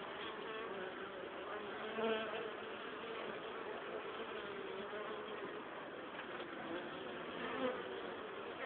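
Honeybees buzzing at the hive entrance: a steady hum of many bees, with single bees flying close past and swelling louder about two seconds in and again near the end. The bees are on their cleansing flight, the first flights out of the hive after winter.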